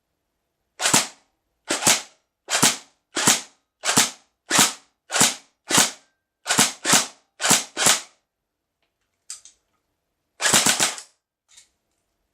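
Tokyo Marui HK416D DEVGRU Custom next-generation electric airsoft gun firing about a dozen single shots at a steady pace, then a short rapid burst of several shots about ten seconds in.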